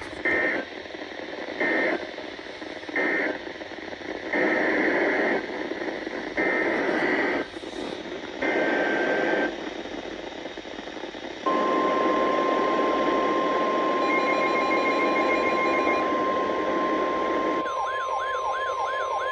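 NOAA Weather Radio Emergency Alert System (SAME) data bursts over radio hiss: three short squawks and then three longer ones, which close one alert and open the next. A steady 1050 Hz warning alarm tone follows, and a wavering siren-like tone joins it near the end.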